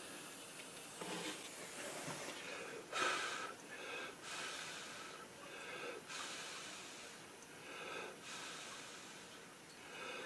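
A person breathing audibly close to the microphone, one breath every second or two.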